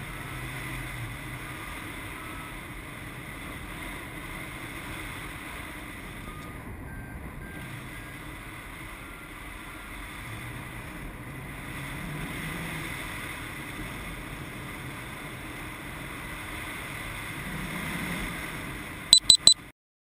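Steady wind rushing over the microphone of a harness-mounted camera on a flying paraglider. Faint short beeps from a variometer step up and down in pitch now and then. Near the end come three loud high beeps as the camera stops recording, and then the sound cuts off.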